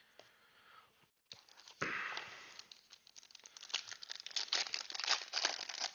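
A foil trading-card pack of Panini Donruss Clearly Football being torn open by hand, with a sharp tear about two seconds in and then dense crinkling and crackling of the foil wrapper that grows louder toward the end.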